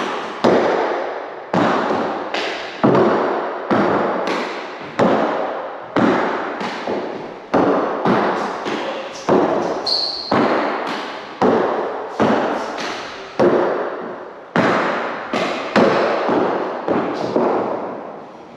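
Hard rugby fives ball struck with a gloved hand and smacking off the walls and wooden floor of an enclosed four-wall court. The sharp smacks come about once a second, each with a short echo, and stop shortly before the end.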